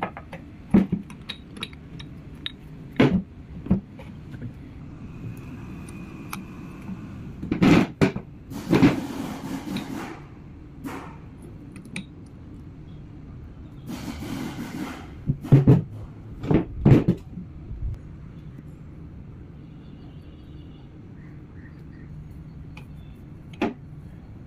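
Metal parts of a truck power take-off clinking and knocking as they are handled and fitted into the cast housing. The sharp clicks come at irregular moments, with louder clusters of knocks about a third of the way in and again past the middle, over a steady low hum.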